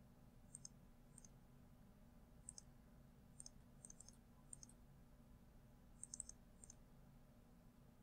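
Faint computer mouse clicks, about ten in all, some in quick pairs, over near silence.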